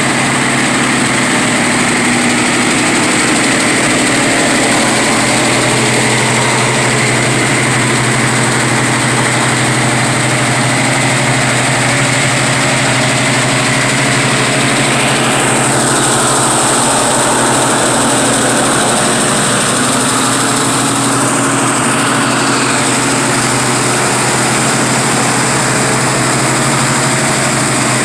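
A 1970 Ford Mustang Grande's engine idling steadily. A high whine above it drops in pitch about halfway through.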